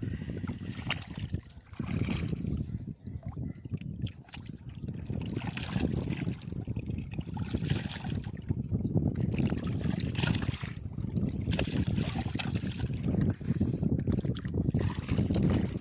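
Shallow seawater splashing and sloshing as hands and feet move through it, under a low, gusty rumble of wind on the microphone.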